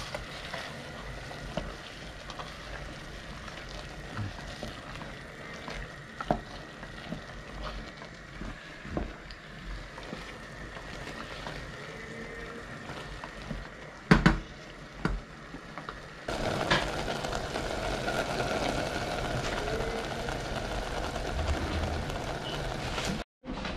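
Food sizzling in a pan, a steady hiss with occasional clicks and knocks of utensils. The sizzle gets louder about sixteen seconds in.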